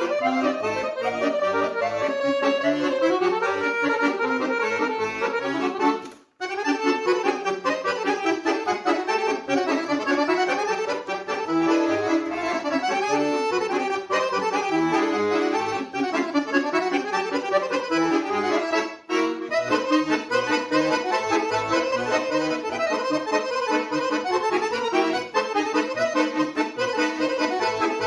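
Solo Guerrini chromatic button accordion playing a quick, moving tune over low bass notes. The playing breaks off for a moment about six seconds in, then carries on.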